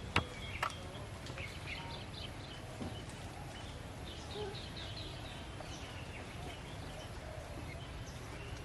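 Outdoor background noise, a steady low rumble, with two or three sharp clicks in the first second and faint short high chirps around the middle.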